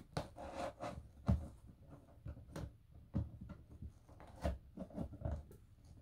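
Scissors blade scraping and slicing along packing tape on a cardboard box: a string of irregular short scrapes and taps, the loudest about a second in.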